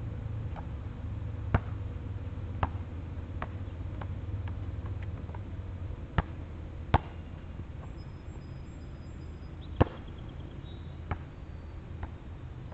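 Basketball coming off the rim after a shot and bouncing on the asphalt court, the bounces coming closer together as it settles, followed by a few louder single thumps. A steady low rumble runs underneath.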